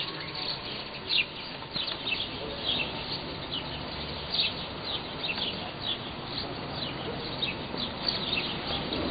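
Small birds chirping: many short, high, falling chirps, several a second, against a steady background hum.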